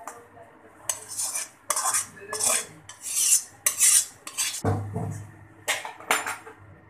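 Perforated metal spatula scraping the inside of a metal kadai in a quick run of short, sharp strokes, emptying out the last of a cooked stir-fry. A dull knock sounds about two-thirds of the way through.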